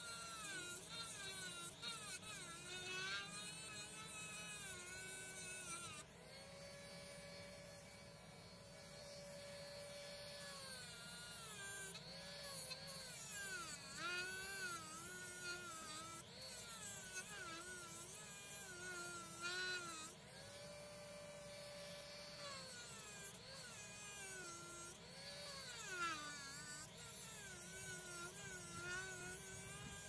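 Handheld rotary tool with a small grinding wheel, whining as it grinds the plier jaws of a steel multitool. Its pitch wavers up and down again and again, and the going is slow on metal that is really hard.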